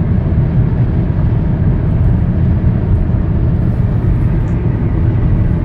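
Kia Soul's cabin at highway speed: steady road noise, a low rumble without change.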